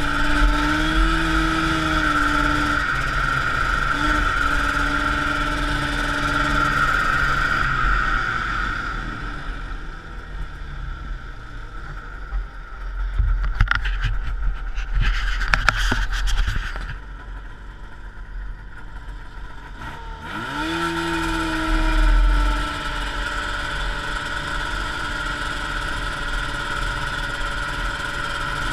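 1979 Arctic Cat El Tigre 6000's liquid-cooled 440cc Suzuki two-stroke engine running steadily, then easing off to a lower, quieter run about eight seconds in. Midway come close knocks and rubbing as a hand handles the camera. About twenty seconds in the throttle opens, the engine pitch rises, and it settles back to steady running.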